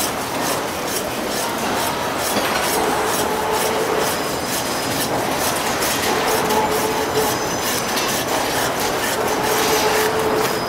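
Butcher's hand bone saw rasping back and forth through the bone of a beef forequarter. A steady squealing tone comes and goes several times.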